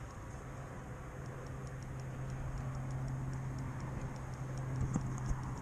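Spinning reel's drag ticking slowly, about three or four clicks a second, starting about a second in, as line is pulled off slowly, which the angler takes for a snag of seaweed rather than a fish. A steady low hum runs underneath.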